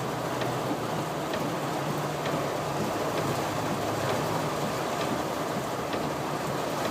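Steady rushing water noise of a car driving slowly through deep floodwater, over a low engine hum.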